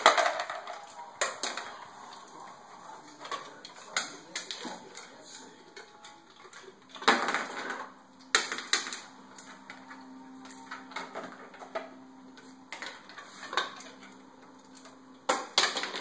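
A Great Dane crunching ice cubes in his jaws, with irregular sharp crunches and a few louder bursts every few seconds. At the very start, ice clatters out of a refrigerator door dispenser.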